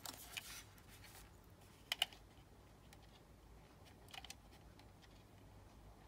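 Faint plastic clicks and taps from a plastic character talking alarm clock being handled and turned over, with two short clicks about two seconds in and a few more about four seconds in, over near silence.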